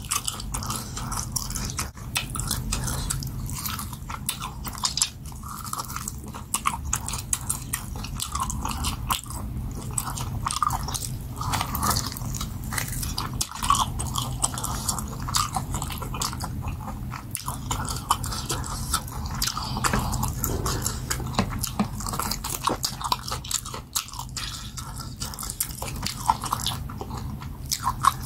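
Close-up eating sounds: biting and chewing meat off a cooked goat head, a dense run of quick chewing clicks with a few louder bites.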